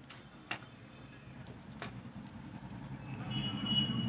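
A few faint clicks of the plastic cartridge drum unit being handled, then a motor vehicle engine growing steadily louder in the background from about three seconds in.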